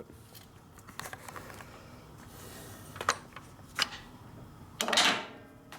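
Scattered metallic clicks and clinks from hand tools and small metal parts being handled, with a louder clatter about five seconds in.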